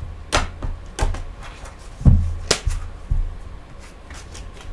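Tarot cards being handled on a table: a string of sharp taps and clicks, the loudest about two seconds in, over a low hum.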